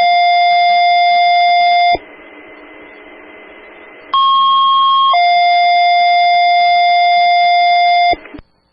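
Two-tone sequential paging tones heard through a scanner on a fire dispatch radio channel, alerting stations before a dispatch. A long steady lower tone ends about two seconds in, followed by a couple of seconds of radio hiss. Then comes a short higher tone and a long lower tone that cuts off near the end.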